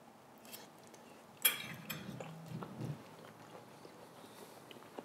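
Soft eating sounds while people taste a forkful of noodles: a sharp click about a second and a half in, then brief low mouth sounds and chewing.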